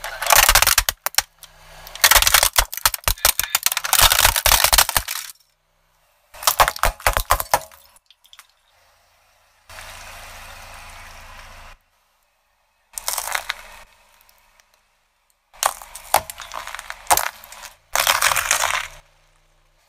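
A car tyre crushing objects, first a plastic toy bus and later raw potatoes, in several loud bursts of cracking and crunching that are cut apart by abrupt silences. A softer steady hiss sits in the middle.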